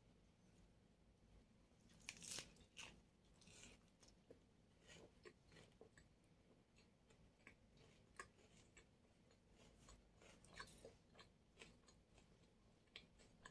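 Faint biting and chewing of a chicken doner wrap in lavash bread, a run of small crunching crackles with the loudest bite about two seconds in.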